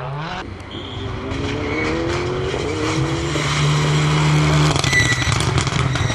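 Renault Mégane RS rally car's turbocharged four-cylinder engine at full throttle, revs climbing, with gear changes about three and about five seconds in, growing louder as the car comes past.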